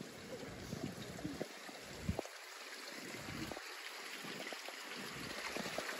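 Outdoor riverside ambience: wind buffeting the microphone in uneven gusts over a steady hiss of flowing river water, with one light knock about two seconds in.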